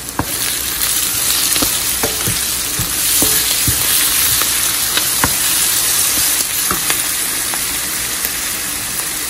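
Sliced onions and cumin seeds frying in oil in a nonstick pan: a steady sizzle, with irregular taps and scrapes as a wooden spoon stirs them against the pan.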